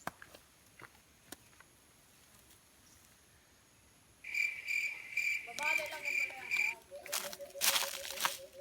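A cricket trill starts about four seconds in after near silence: a steady, high, evenly pulsing tone that stops near seven seconds. Faint voices come in over it.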